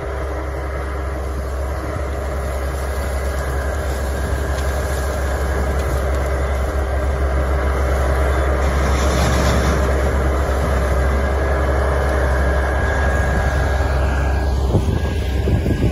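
A sugarcane harvester running steadily while cutting and loading cane, with a deep engine rumble and a steady whine. The sound grows louder toward the middle. Near the end the whine drops in pitch and there are a few knocks.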